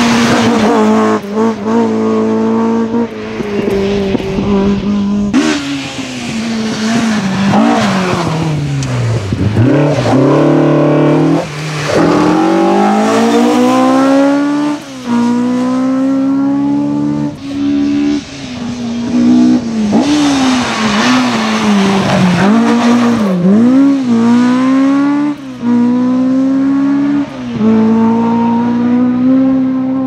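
Rally car engines at full throttle, Mk2 Ford Escorts among them, several cars in turn. Each engine revs high with its pitch climbing through the gears, then dropping sharply on lifts and downshifts for corners. The sound changes abruptly from one car to the next.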